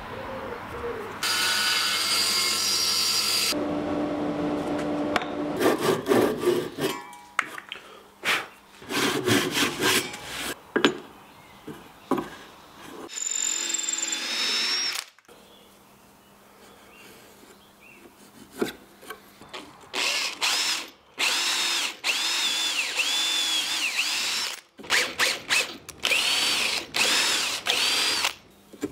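A cordless drill boring into a softwood block to make a wooden sap tap, in several bursts with the motor whine rising and falling. Earlier there are irregular strokes of hand-tool work on the wood.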